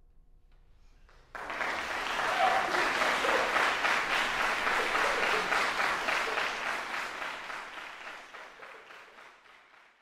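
Audience applauding, starting suddenly about a second in and then fading away toward the end.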